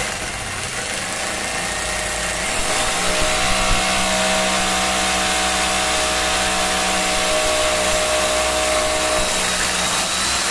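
Rotary hammer drill with a 12 mm bit running steadily, boring a hole into a wall for an anchor bolt. A steady motor whine settles in about three seconds in and eases off shortly before the end.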